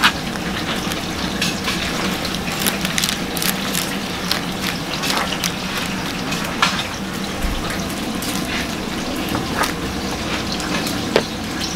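Large steel pans of spicy red fish-cake broth bubbling at a steady boil, with scattered short pops and clicks.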